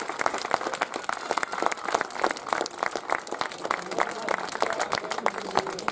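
Crowd applauding, a dense run of hand claps.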